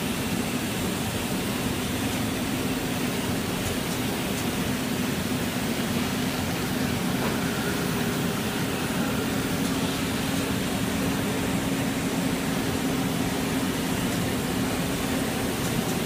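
Steady machine hum of a running rubber hose extrusion and haul-off line, with a steady low drone under an even whir.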